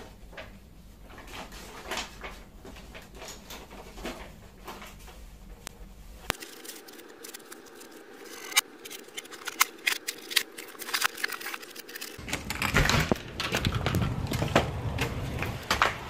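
Sporadic clicks and clacks from a Royal Safari II manual portable typewriter being worked by hand. About three-quarters of the way through, a louder rumble of wind and handling noise on a phone microphone takes over.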